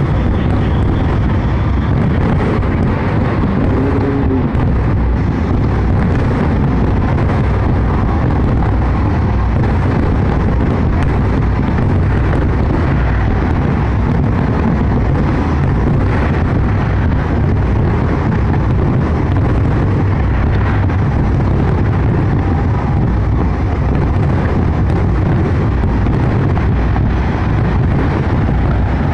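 Large fireworks display with many shells bursting at once, the bangs running together into a steady low rumble.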